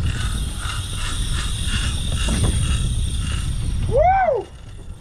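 Fishing reel cranked fast, its gears whirring in a rhythmic churn of about three turns a second, over wind rumbling on the microphone. A shout of 'woo!' comes near the end.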